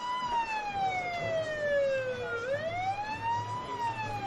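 Police car siren on a slow wail: the pitch rises over about a second, then falls more slowly over about two, one full cycle every three and a half seconds. A low steady hum joins about a second in.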